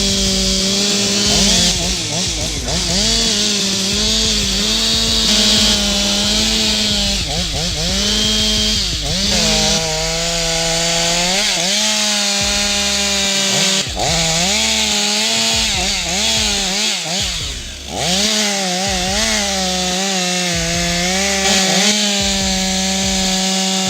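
Two-stroke chainsaw running at high revs through wood. Its pitch sags again and again as the chain loads up in the cut, then climbs back when the load eases.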